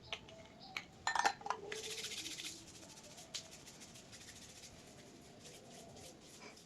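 Equipment being handled: scattered clicks and knocks, a louder clatter about a second in, then about a second of rustling, followed by faint scratching and ticking.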